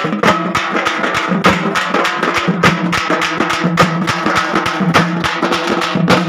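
Music of fast, dense drumming, many strikes a second, over a steady low drone.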